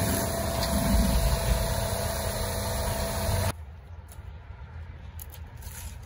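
An engine running steadily with a low hum. The sound drops away abruptly about three and a half seconds in, leaving a quieter low hum with a few faint clicks.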